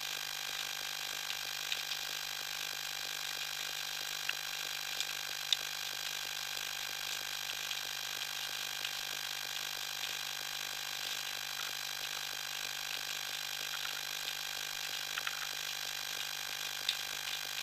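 Underwater ambience picked up by a camera in its waterproof housing: a steady hiss with faint constant tones, and a few scattered sharp clicks.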